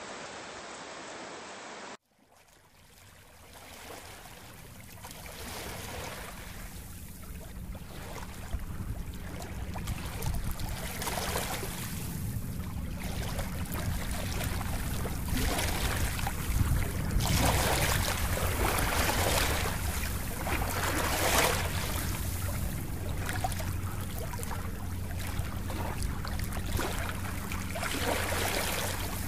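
A steady hiss cuts off about two seconds in. After a moment of silence, a rushing-water ambience fades in, swelling and easing every second or two over a steady low rumble.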